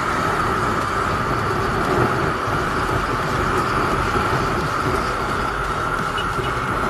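Steady rush of wind on the rider's microphone, mixed with the motorcycle's engine and tyre noise while cruising at highway speed.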